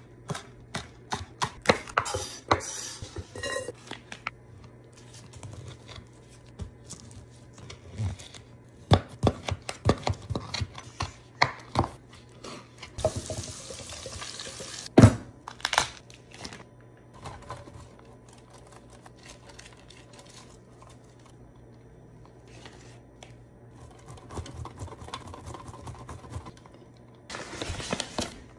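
Kitchen food-prep sounds: scattered clicks, clatter and knocks of utensils and dishes on a cutting board, with two short hissing rushes, one about halfway through and one near the end. A block of cheese is rubbed on a box grater late on.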